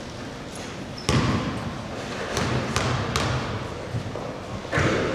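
A basketball bouncing several times on a hardwood gym floor. The first bounce, about a second in, is the loudest.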